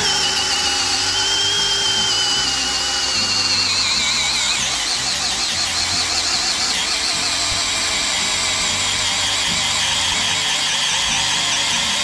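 Stanley FatMax SBD715D2K brushless cordless drill in low gear (slow speed, maximum torque) driving a 20 mm wood-boring bit into hard wood, the motor whining steadily under load with the noise of the bit cutting. The whine sags slightly in pitch a few seconds in.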